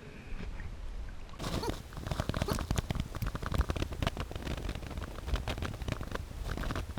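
Dense, irregular crackling and patter of water, typical of underwater audio during spearfishing. It starts about a second and a half in, over a low rumble of water movement.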